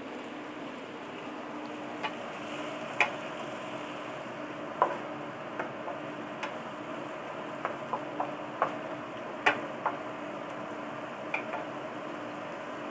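Stir-fry of vegetables and squid sizzling steadily in a wok, with scattered sharp clicks and scrapes of the utensil against the wok as it is stirred.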